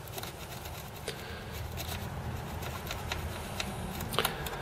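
RCA phono plug being pushed in and out of, and twisted in, the audio phono jack of an Amiga A2000 motherboard, working DeoxIT contact cleaner into the oxidised socket: faint scraping with a few small clicks, the sharpest about four seconds in.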